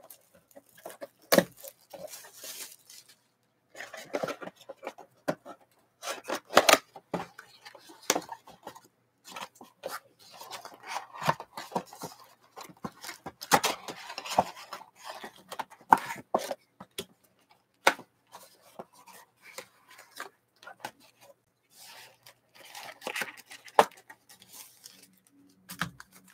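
A cardboard mega box of trading cards being opened by hand: plastic wrap crinkling, cardboard flaps tearing and scraping, and foil card packs sliding out, in irregular crackles and taps.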